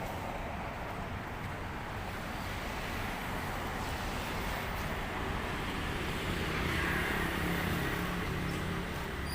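Street traffic noise: a steady rumble, with a motor vehicle's engine growing louder in the second half as it draws near.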